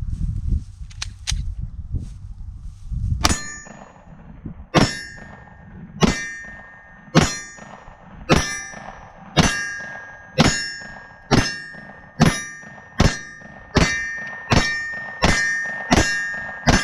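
About fifteen Glock pistol shots, each followed by a loud metallic ring from a struck steel target. The first comes about three seconds in after some handling noise. The shots start slow, about a second and a half apart, and speed up to under a second apart near the end.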